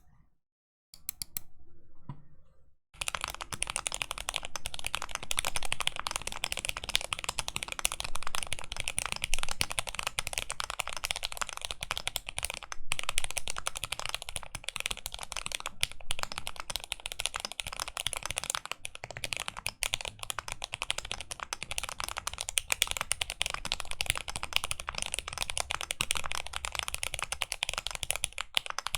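Fast, continuous typing on a mechanical keyboard with Zealios V2 62g tactile switches lubed with Krytox 205g0, GMK keycaps and a stacked acrylic case. The dense clicking starts about three seconds in.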